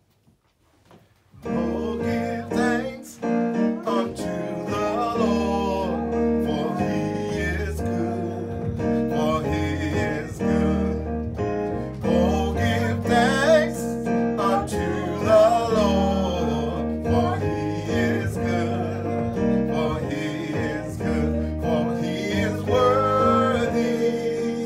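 Roland RD-300-series digital stage piano playing sustained chords, with a woman singing a slow worship song over it; the music begins about a second and a half in.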